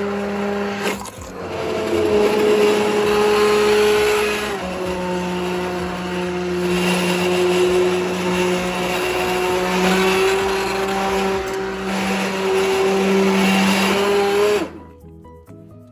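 Immersion stick blender running in a pot of cooked apricot barbecue sauce, puréeing it smooth. The motor hum shifts pitch a few times and stops about a second before the end.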